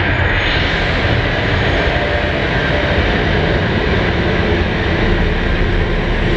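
Loud, steady dark ambient industrial drone from a live performance: a dense rumbling wash of noise with faint held tones and no beat or pauses.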